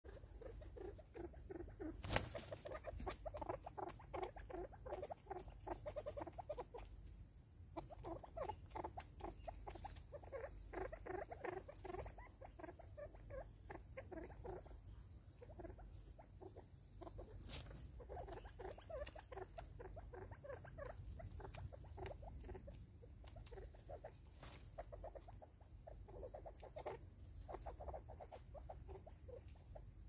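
Birds' beaks pecking at seed in a plastic feeder container on a wooden stump: faint, rapid, irregular tapping and scratching, with a sharper click about two seconds in.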